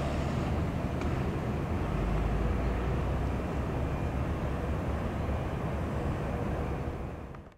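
Jet noise from an Airbus A310-304 climbing away after takeoff: its twin GE CF6-80C2 turbofans make a steady low rumble that fades out near the end.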